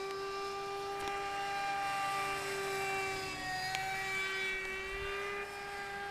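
Electric RC helicopter in flight: a steady high whine from its motor and rotor, with the pitch shifting slightly about halfway through.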